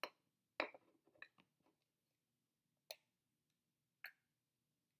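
A few small, sharp plastic clicks and taps as pieces of a toy toilet-shaped candy kit are handled and fitted together, with near silence between them.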